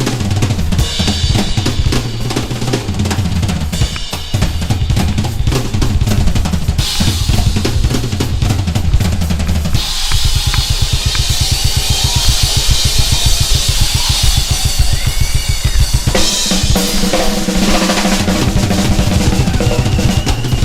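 Music with a drum kit, bass drum, snare and cymbals over a bass line; about ten seconds in the beat turns fast and dense, and the earlier groove returns near the end.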